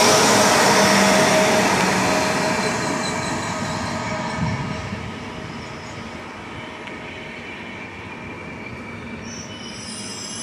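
Passenger train hauled by a Newag Griffin electric locomotive rolling past on the rails. It is loudest at first as the locomotive goes by, then fades as the coaches follow, with one thump about four and a half seconds in. High-pitched brake squeal starts near the end as the train brakes to a stop.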